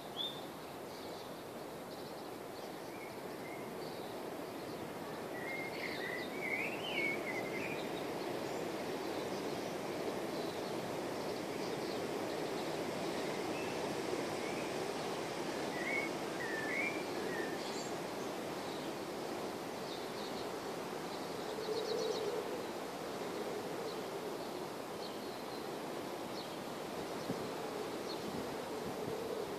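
Outdoor ambience: a steady background rush with a few short bird calls, clearest about six and sixteen seconds in and again near the end.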